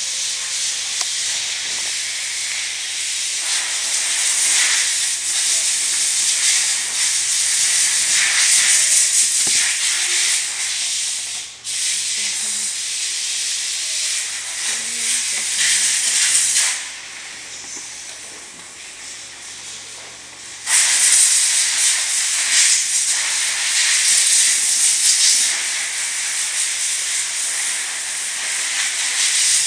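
Samsung CLP-365W colour laser printer running a print job with a steady, hissing whir. It cuts out for a moment about twelve seconds in, falls much quieter for about four seconds after the middle, then comes back at full strength.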